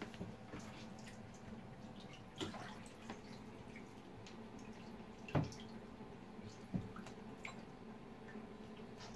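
Bathwater splashing and dripping as a baby Java macaque moves about in a shallow bathtub, over a faint steady hum. There are a few sharper splashes, about two and a half seconds in, at five and a half seconds (the loudest) and near seven seconds.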